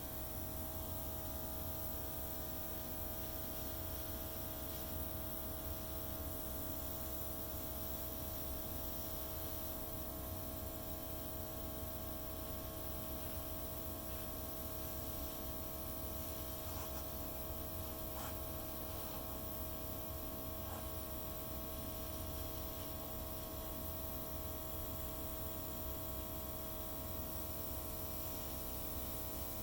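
Airbrush compressor running steadily: a constant motor hum with an even hiss of air.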